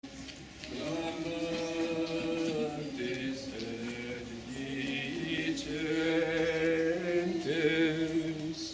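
Voices singing a slow Gregorian-style chant, holding long notes and stepping between pitches.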